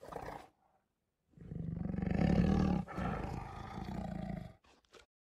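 Recorded tiger roar played by Google's 3D tiger model. A short sound comes at the start, then a long, low roar of about three seconds with a brief break in the middle.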